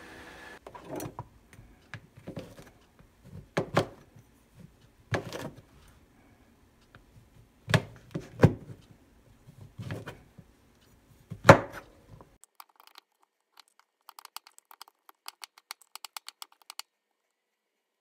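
Knife slicing shiitake mushrooms on a plastic cutting board, each cut ending in an irregular knock on the board. Near the end come a run of light, quick clicks.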